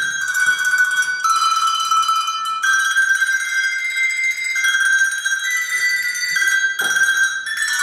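Small hand-held tuned bells rung one note at a time in a slow melody. Each note is held and rings on into the next.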